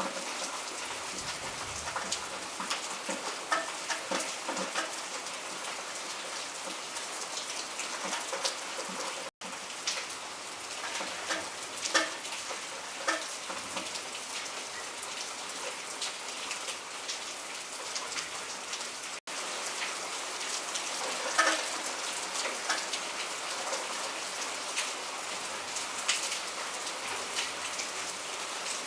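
Heavy rain in a downpour, falling steadily with many sharp drops striking a nearby surface. The sound cuts out for an instant twice.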